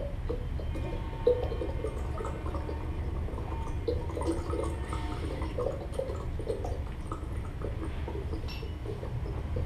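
Amplified plant materials played through loudspeakers: irregular scratching, rubbing and small crackles, with scattered clicks over a steady low hum.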